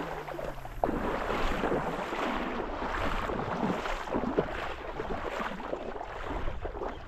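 Shallow seawater splashing and sloshing in an irregular, choppy way, with wind buffeting the microphone.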